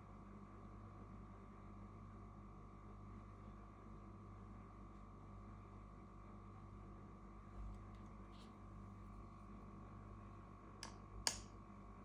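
Near silence: steady faint room hum, with two small sharp clicks close together near the end.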